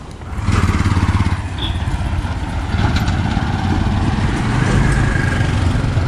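Small engine of an auto-rickshaw (tuk-tuk) running close by, coming in loud about half a second in and holding steady.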